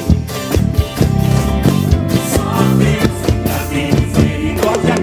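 Live gospel band playing: a drum kit's drum hits and cymbals over held instrument notes, with a rising slide in the low notes near the end.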